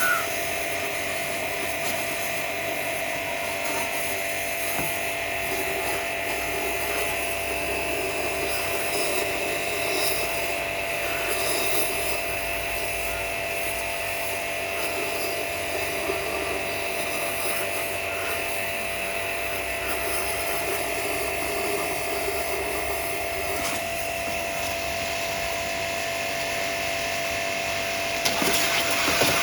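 A power tool running steadily with a constant high whine and no pauses.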